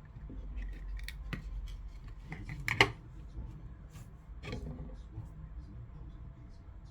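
Light clicks and taps of small parts being handled, with one sharper, louder click nearly three seconds in.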